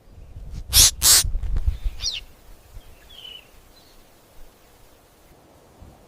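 A bird giving two loud, harsh calls in quick succession about a second in, followed by a shorter call and a faint chirp.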